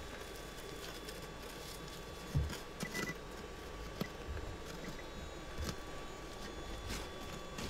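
Hand pick digging into gravelly soil on rock: irregular knocks and scrapes, with a dull thump about two and a half seconds in. A faint steady tone and a few brief high beeps sound underneath.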